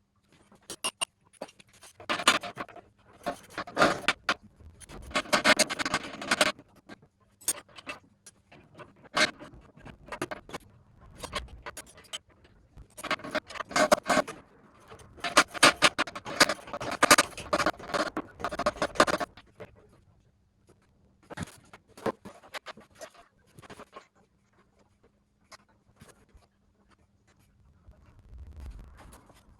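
Metal clinking, knocking and scraping of tools and parts being worked by hand while fitting a car hoist's brackets and mechanism. The clatter comes in two busy spells of rapid clicks, then thins to scattered clicks for the last third.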